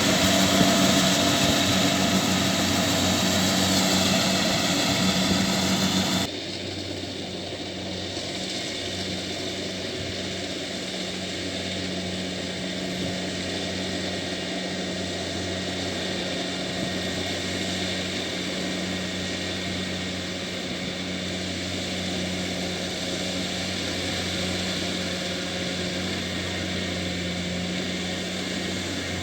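Kubota DC70Plus combine harvester's diesel engine and threshing machinery running steadily under load as a continuous drone with a low hum. About six seconds in, the sound drops suddenly to a quieter, duller drone that then holds steady.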